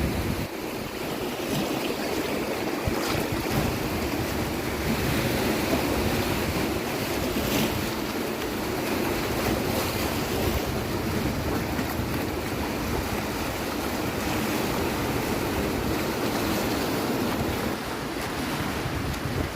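Sea waves washing onto a beach in a continuous wash, swelling and easing slowly, with wind rumbling on the microphone.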